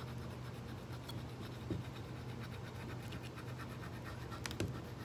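Faint scratching as burnt-on foil is scraped off the soleplate of a hot clothes iron, with a few light clicks.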